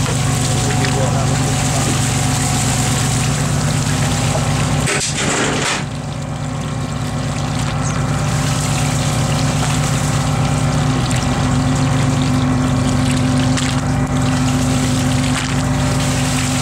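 Steady mechanical drone of a boat's engine and pot-hauling gear running while a line of spot prawn pots is pulled up from the water. The drone dips briefly a third of the way in and changes tone about two-thirds of the way through.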